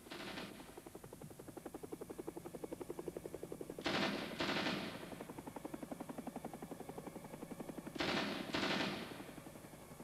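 Film soundtrack with a rapid, even pulsing of about ten beats a second that starts suddenly and builds. Two pairs of loud crashes break in, about four and eight seconds in, each dying away over a second.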